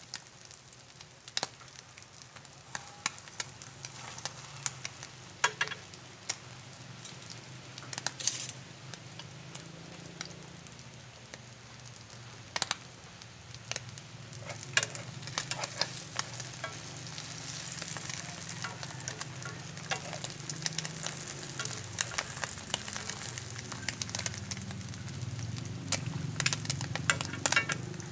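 Beaten duck eggs mixed with eel-catfish roe frying in hot oil in a pan: a steady sizzle with sharp pops and crackles scattered throughout, growing louder from about halfway through.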